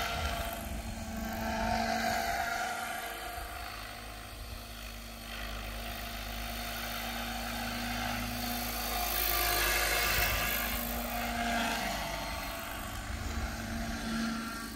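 Radio-controlled T-Rex 600 helicopter in an MD500 Defender scale body flying low, a steady whine from its rotors and drive. The sound swells and fades as it moves about, loudest around two seconds in and again near ten seconds.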